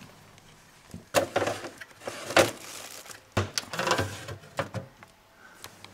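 Freezer drawer being pulled open and a metal baking tray handled into it: a run of about five sharp knocks and clatters with short rattles between them.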